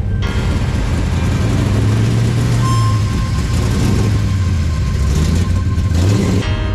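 Classic Chevrolet Nova's engine running with a low rumble as the car rolls past close by; the sound cuts off suddenly near the end.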